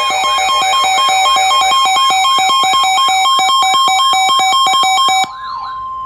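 Electronic emergency alert tones: a steady attention tone under a fast warbling sweep, about four rises and falls a second, with a rapidly stepping pattern of high beeps. Most of it cuts off suddenly about five seconds in, leaving a single steady tone.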